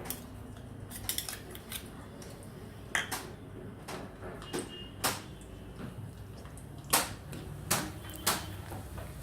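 Metal spoon clinking and knocking against a kadhai in irregular strokes as chopped garlic is put into hot mustard oil and stirred, the loudest knock about seven seconds in, over a steady low hiss.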